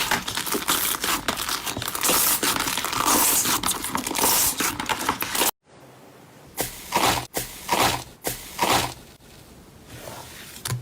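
Slime being worked by hand: a dense run of crinkling, crackling sounds, then an abrupt cut about halfway. After the cut come a few separate short squelches over a quieter background.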